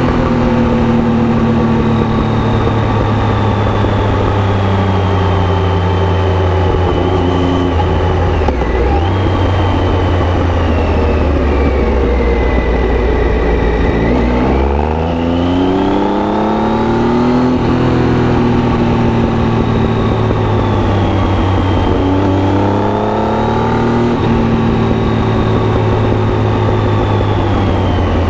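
Triumph Tiger 800's inline-three engine through an Arrow aftermarket exhaust, riding under changing throttle. The engine note sinks as it rolls off, climbs steeply as it accelerates about halfway through, then dips and rises again near the end.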